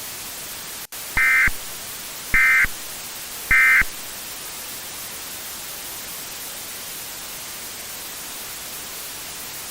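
Emergency Alert System end-of-message signal: three short bursts of shrill data tones, each about a third of a second long and about a second apart, over a steady hiss that carries on after them.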